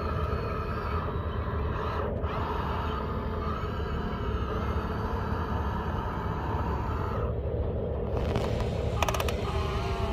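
Radio-controlled excavator's electric motors and gearing whirring steadily as the boom and bucket swing and dig, the whine changing pitch as the movement changes, with a brief run of clicks about nine seconds in.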